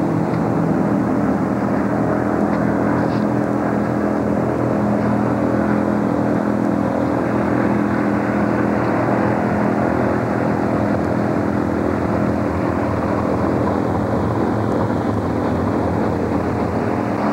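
V8 stock car engines running at speed around the oval, heard as a steady, even drone that neither swells nor fades.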